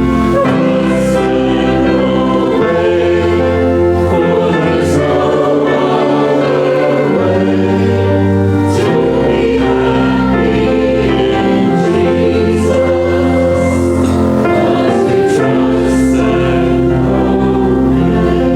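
Gospel choir singing with instrumental accompaniment: held chords over a bass line that moves to a new note every two to three seconds.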